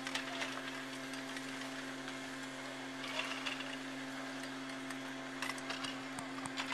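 A steady low mechanical hum over a faint even hiss, with a few soft clicks.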